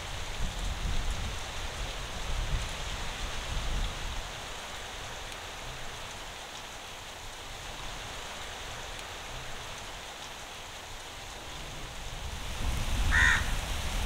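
Steady rain falling, with a low rumble at the start and again near the end. About a second before the end comes one short bird call.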